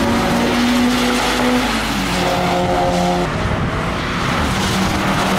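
Track cars running on a wet circuit: an engine note holds, then drops in pitch about two seconds in as a car lifts off, over a steady hiss of tyres throwing spray.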